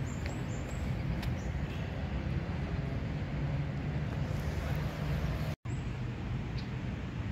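Steady low rumble of distant city traffic, with a brief break in the sound a little after halfway.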